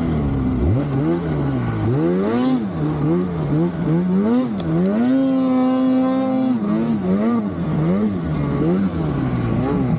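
Naturally aspirated Polaris Khaos mountain snowmobile's two-stroke engine revving up and down every second or so as it is ridden, held at a steady high rev for about a second and a half midway.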